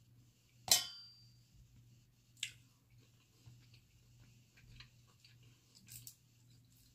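Dungeness crab shell being cracked and picked apart by hand: a few sharp cracks and clicks of shell, the loudest just under a second in with a brief ring like shell hitting a dish, another about two and a half seconds in, and smaller ticks after.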